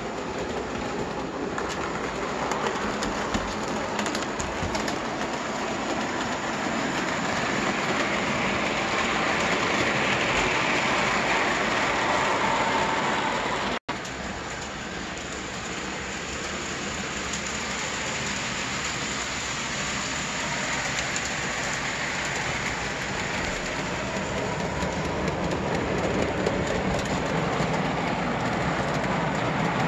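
Vintage O scale model trains running on metal three-rail track: a steady noise of metal wheels rolling on the rails and electric motors running, cut off for an instant about halfway through.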